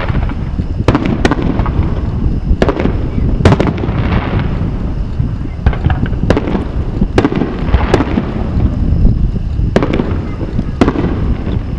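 Aerial firework shells bursting overhead: about a dozen sharp bangs at irregular intervals, each followed by a rolling echo, over a continuous low rumble.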